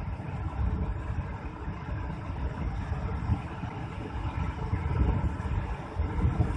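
Diesel rail vehicle running as it approaches slowly along the track, heard as a low, uneven rumble with a faint steady engine tone.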